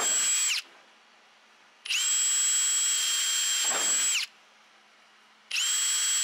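Cordless drill drilling pilot holes through thin aluminium sheet, in bursts of a steady high whine that drops away as the trigger is released. A burst ends just after the start, a full burst of about two seconds comes in the middle, and another starts near the end.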